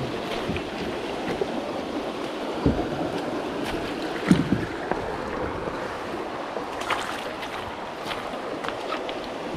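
Shallow creek water rushing steadily over a rocky riffle around a kayak, with a few dull thumps and splashes, about three and four and a half seconds in, from the paddle or hull.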